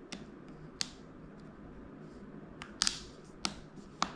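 The plastic clips of an M1 MacBook Air's space bar snapping into place as it is pressed down onto its mechanism. There are about six sharp, irregular clicks, the loudest close together about three seconds in.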